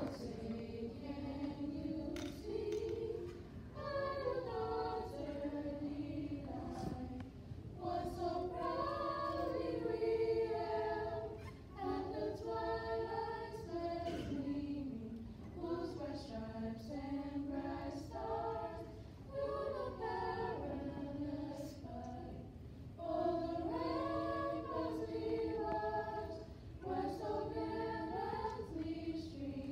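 A small group of female JROTC cadets singing together a cappella, in phrases of a few seconds with short breaks between them for breath.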